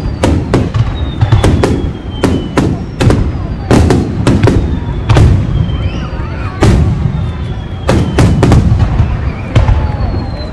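Aerial fireworks display: shells bursting in a rapid, irregular run of loud bangs, about one or two a second, with a few faint whistles falling in pitch between them.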